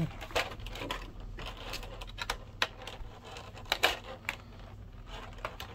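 Scratching and scattered clicks of a plastic blister tray being handled as the tape holding it shut is picked at and cut.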